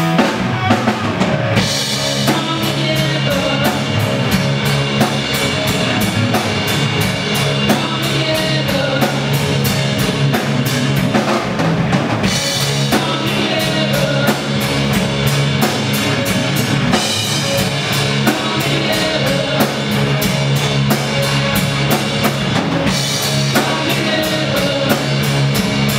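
Live rock band playing: drum kit with a steady beat, electric bass guitar and electric guitar through amplifiers.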